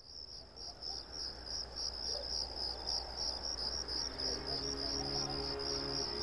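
A chorus of insects chirping in a steady, fast-pulsing shrill buzz, fading up from silence at the start. Soft sustained music notes come in about four seconds in.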